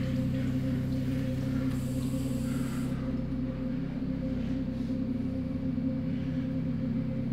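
A low, steady sustained drone of a few held tones, like a dark ambient film-score pad, with a brief soft hiss about two seconds in.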